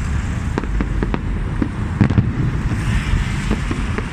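Fireworks going off: an irregular string of bangs and crackles over a steady low rumble, with the loudest pair of bangs about two seconds in and a brief hiss a second later.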